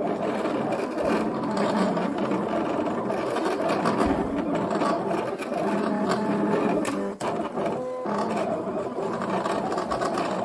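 Silhouette electronic vinyl cutting machine running, whirring steadily as it cuts lettering out of vinyl, with brief breaks about seven and eight seconds in.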